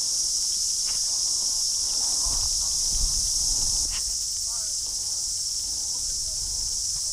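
Steady, high-pitched chorus of insects chirring, with a few faint knocks and rustles underneath.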